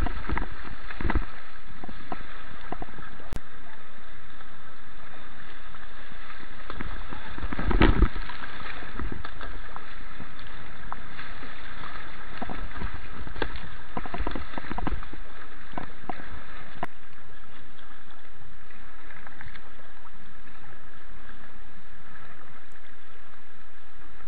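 Rushing river water around a kayak, picked up close to the surface by a helmet-mounted action camera: a steady wash of noise with scattered splashes and knocks, the loudest about eight seconds in.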